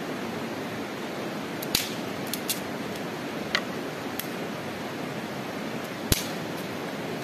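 Dry sticks and twigs snapped by hand: a handful of short, sharp cracks, the loudest about six seconds in, over a steady rushing hiss.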